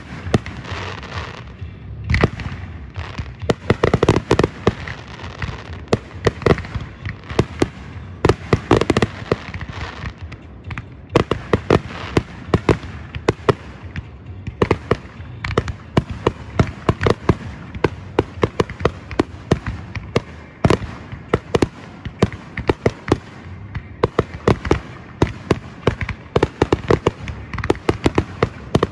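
Fireworks and firecrackers going off: a dense, irregular run of sharp pops and cracks, several a second, some much louder than others.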